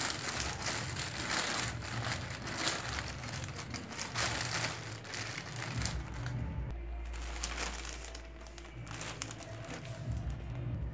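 Clear plastic carrier bag crinkling as it is handled and opened, with packets inside shifting against the plastic in irregular bursts.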